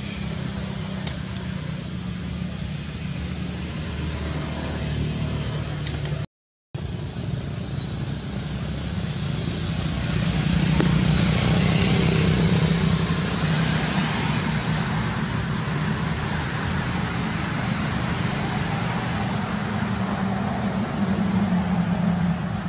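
A motor vehicle engine running steadily at idle, a low hum that swells louder for a few seconds near the middle and cuts out for a moment about six seconds in.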